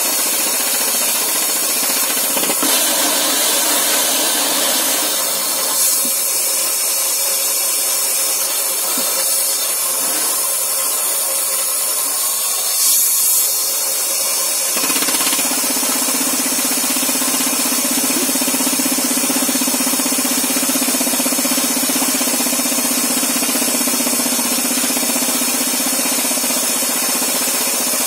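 MK5 rock-drilling rig running as it bores into rock: a loud, steady, dense noise. About halfway through, a steady low hum joins it.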